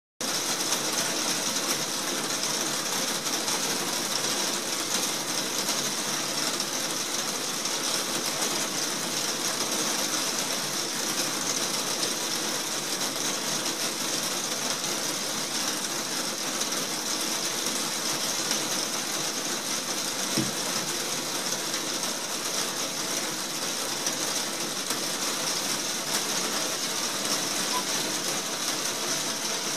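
Heavy rain pattering steadily on a conservatory's glazed roof, heard from inside beneath it: a dense, even patter of countless drops.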